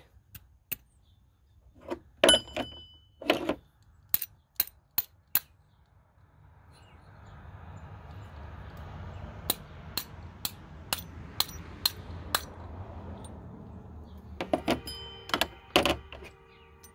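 Small metal hardware being handled off-frame: sharp clicks and clinks of a bolt, washer and tools, with a run of evenly spaced clicks about twice a second in the middle and a ringing metallic clink near the end. A soft rushing noise rises under the clicks from about six seconds in and fades by about fourteen.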